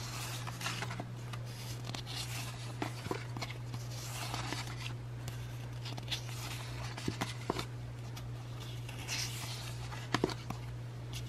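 Stack of paper sticker sheets handled and flipped through one after another: repeated short paper swishes and rustles with a few light taps, over a steady low hum.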